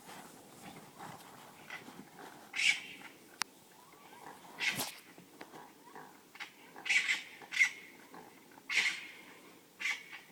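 Unidentified animal making short grunting calls, about half a dozen loud ones at irregular gaps of a second or two, coming more often in the second half.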